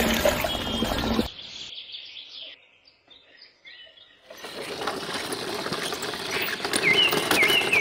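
Bursts of scraping, rustling noise as wet concrete slides from a miniature mixer's chute into a small metal wheelbarrow and the wheelbarrow is then moved over sand: one burst at the start, another from about four seconds in. A small bird chirps repeatedly in the quieter middle and near the end.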